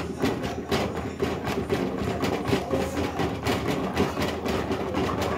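Wooden spatula stirring thick curry masala in a metal pot, knocking and scraping against the pot several times a second, over a steady low hum.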